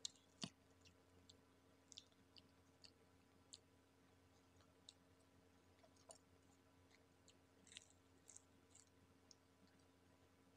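Faint, irregular crackles and wet clicks of eating: crispy breaded fried chicken being pulled apart by hand and chewed, over a low steady hum.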